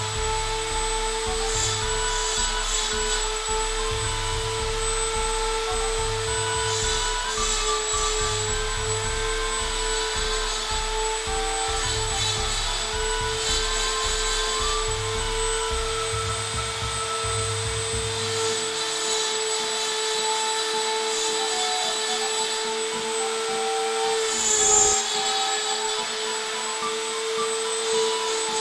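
Handheld rotary tool running at a steady high speed, a constant whine, its fine bit grinding into antler as lines are carved; the pitch sags briefly with a short louder grinding near the end.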